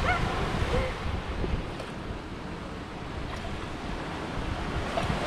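Wind buffeting the microphone over a steady wash of surf breaking on the beach.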